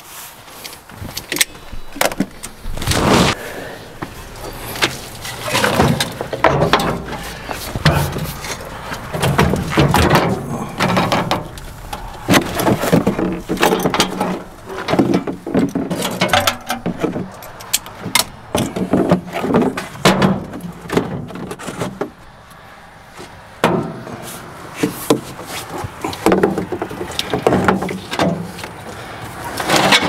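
Irregular clanks, knocks and scrapes of wrenches and batteries being handled while the batteries on an old bulldozer are swapped.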